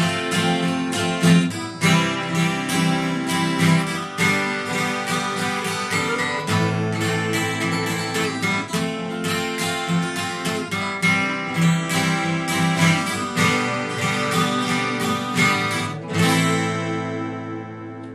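Acoustic guitar strumming chords in a steady rhythm. Near the end a last strum is left to ring out and fade.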